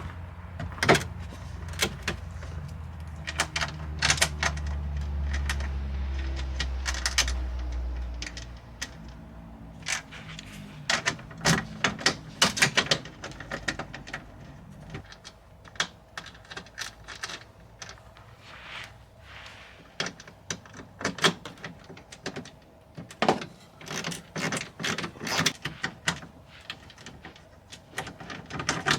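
Hand tools and metal parts clinking and clicking in irregular bunches, with a low rumble during the first eight seconds or so.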